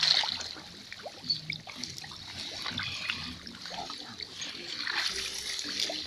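Person wading through deep swamp water, legs splashing and sloshing, with surges of splashing at the start and again about five seconds in.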